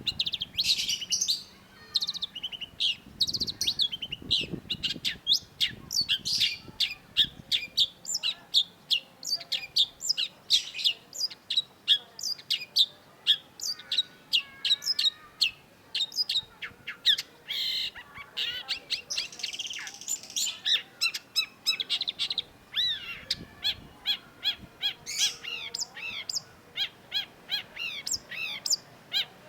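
Long-tailed shrike singing: a fast, unbroken stream of short, sharp chipping and chattering notes, several a second, with a harsher buzzy phrase about two-thirds through.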